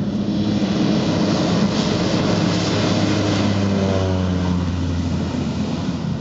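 Cessna Caravan single-engine turboprop at full take-off power on its take-off run, passing close by: a loud, steady engine and propeller drone whose pitch drops as the plane goes past, about four seconds in.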